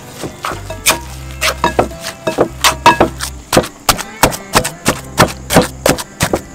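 Knife chopping on a wooden cutting board: sharp, irregular strokes about three a second, over background music.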